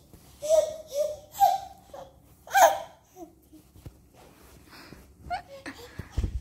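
An eleven-month-old baby laughing and babbling in a few short, high-pitched bursts, the loudest about two and a half seconds in, then quieter.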